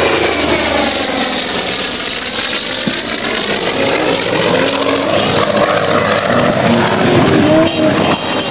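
Supermarine Spitfire's V12 piston engine running steadily as the fighter makes a pass, its sound sweeping as it goes by.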